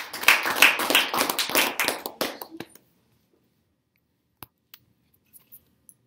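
A small group clapping, dense at first and dying away after about two and a half seconds, followed by a few faint scattered taps.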